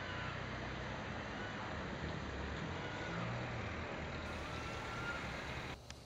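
Steady low rumble of an idling engine over a hiss of background noise, with a few faint short high whistles. It all drops away abruptly near the end.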